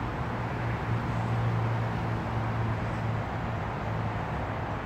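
Steady outdoor traffic noise with a low engine hum that grows louder for a few seconds and then fades, as a vehicle passes at a distance.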